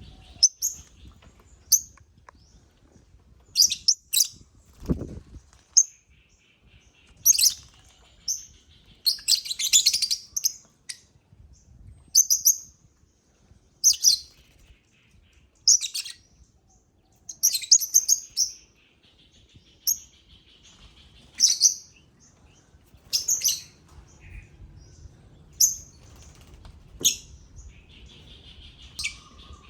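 African lovebirds calling, sharp high chirps roughly every one to two seconds, with a burst of chattering about a third of the way in.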